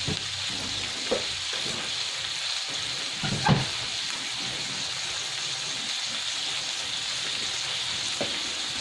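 Onion, garlic and bell pepper sizzling steadily in oil in a wok as they sauté. A couple of brief soft knocks cut through, the louder about three and a half seconds in.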